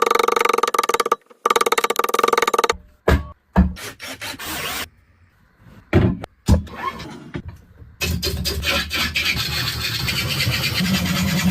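Rasping, scraping strokes on wood, with a few knocks. About eight seconds in, a steady, continuous machine noise with a low hum sets in.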